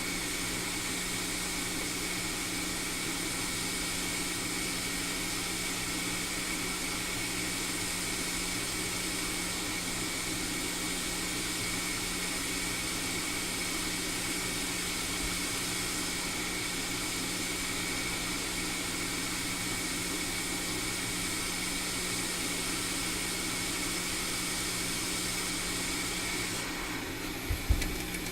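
Hot air rework station blowing a steady hiss with a faint hum onto the logic board, desoldering the Tristar charging chip. Near the end the airflow sound changes, followed by a couple of brief knocks.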